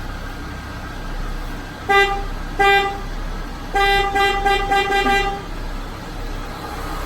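Peugeot 206 car horn sounding: two short toots about two seconds in, then a longer toot lasting about a second and a half. The horn is working again after a fault in its circuit.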